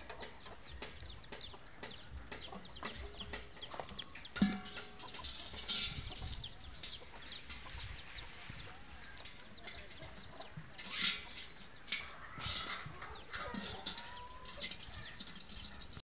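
Chickens clucking, over a constant run of quick, high bird chirps.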